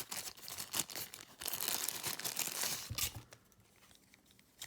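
Plastic packaging crinkling and rustling as a small device is unwrapped from its bag, for about three seconds, then quieter handling with a sharp click near the end.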